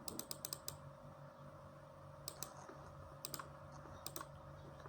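Faint clicking at a computer while setting a filter in oscilloscope software: a quick run of about five clicks, then a few pairs of clicks about a second apart, over a low steady hum.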